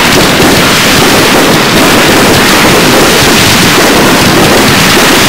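Loud, steady rushing noise with no distinct bangs or rhythm.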